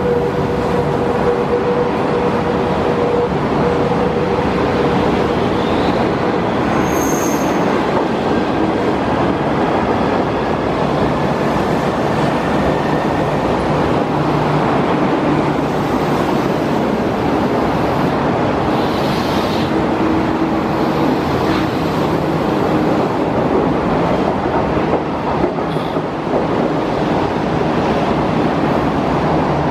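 A passenger train's 25T coaches rolling past at speed: a steady, loud rush of wheels on rail, with a thin steady whine over the first several seconds.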